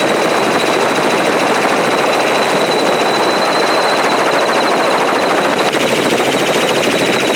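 Helicopter running: a rapid, even chop of the rotor blades under a steady high-pitched whine.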